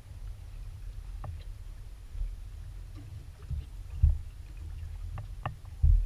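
Small aluminium boat's hull knocked by water, a low steady rumble broken by two heavy thumps about four and six seconds in, with a few light clicks.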